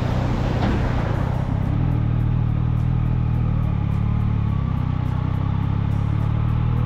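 Yamaha Tracer 900's three-cylinder engine running steadily at low road speed, with wind and tyre noise. In the first second or so a large truck passes close alongside, a brief rushing swell over the engine note.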